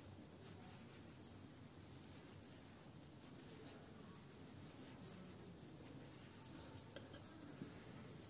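Faint scratchy rubbing of yarn against a metal crochet hook as single crochet stitches are worked, with a couple of small clicks near the end.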